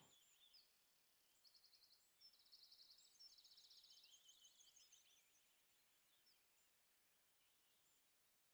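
Near silence, with faint high bird chirps and trills in the first half.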